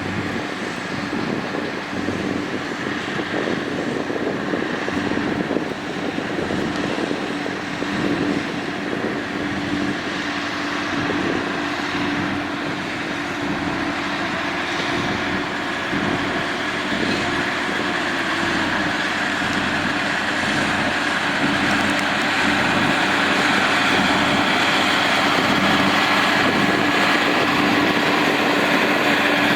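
Diesel engine of heavy earthmoving equipment running under work, a steady mechanical drone that grows louder over the last third.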